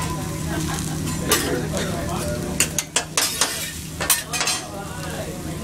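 Food sizzling on a teppanyaki flat-top griddle while a chef's metal spatula scrapes and taps on the steel, over a low steady hum. The sharp taps come once about a second in and then in a quick run between about two and a half and four and a half seconds in.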